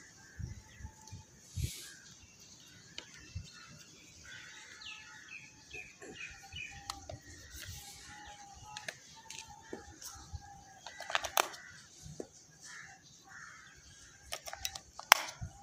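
Scattered plastic clicks and taps from handling a toy RC helicopter and its infrared remote control, with louder clicks about two-thirds in and again near the end as the remote's battery cover comes off and batteries are pressed into the compartment. Faint bird chirps in the background.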